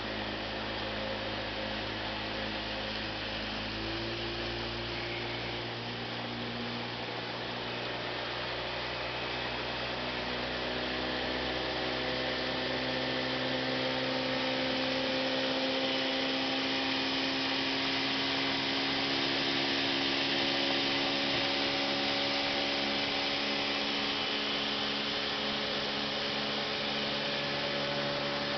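A small motorboat's engine runs under way, its pitch stepping up about four seconds in and then slowly climbing as the boat speeds up. Under it is a steady rush of water and spray against the hull, growing a little louder about halfway through.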